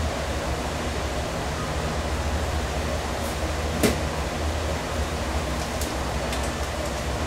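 Steady low hum and rushing noise of running kitchen machinery, like a fan, with a single sharp knock about four seconds in and a few light clicks near the end.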